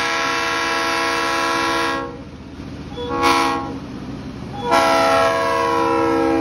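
Diesel freight locomotive's air horn sounding the grade-crossing signal as the train approaches the crossing: a long blast of several notes ends about two seconds in, a short blast follows about a second later, and another long blast begins near the end, over the low rumble of the train.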